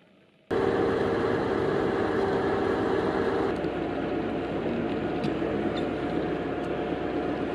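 A steady engine running, most likely the crane lifting the wall panels. It starts suddenly and loudly about half a second in, and its sound shifts a few seconds later.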